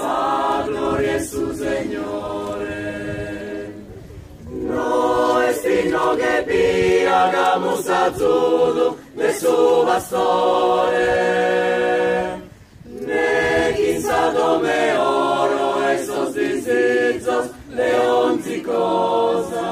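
A choir singing a cappella in long phrases, with short breaks between them.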